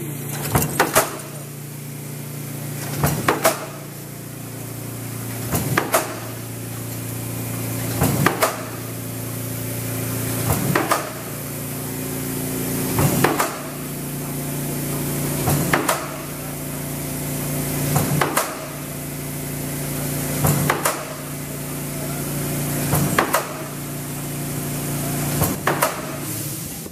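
Mechanical power press stamping coil-fed strip steel in a die. It makes a clanking stroke about every two and a half seconds, about eleven in all, over a steady machine hum.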